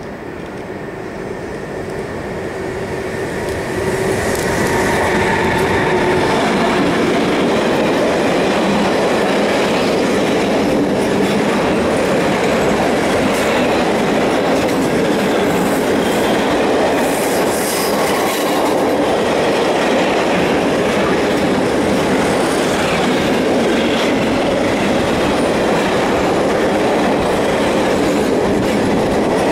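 Freight train headed by an E6ACT Dragon electric locomotive coming up and passing close, growing louder over the first four seconds. Then a long rake of open coal wagons rolls by with steady wheel clatter over the rail joints and some wheel squeal.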